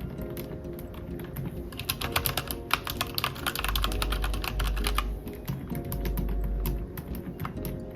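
Typing on a mechanical keyboard, an Ajazz AK820 Pro fitted with AKKO V3 Fairy silent linear switches and jelly keycaps: a fast run of key clicks that starts about two seconds in, over background music.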